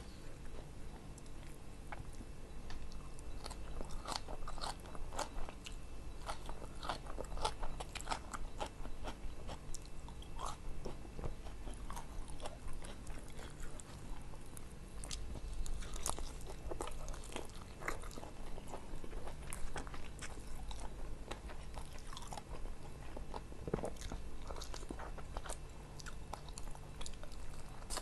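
Close-miked chewing and crunching of food, with irregular crisp clicks throughout: a mouthful of plecing kangkung (water spinach, bean sprouts and peanuts) at first, then grilled taliwang chicken torn by hand and bitten into near the end.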